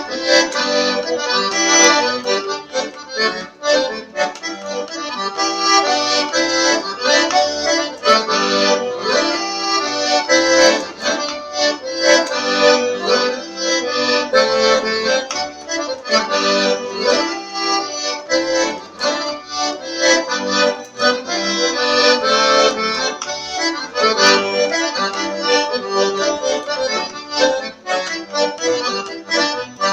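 Accordion playing a lively tune solo, with quick runs of melody notes over held chords.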